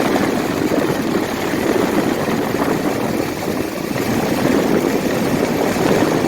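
Rebuilt engine of a 1979 Ford F150 running steadily at idle, an even, rapid pulsing, with its ignition timing set at about 30 degrees before top dead center.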